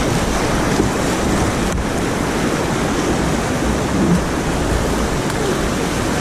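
Whitewater river rapids rushing steadily around an inflatable kayak, with wind rumbling on the microphone.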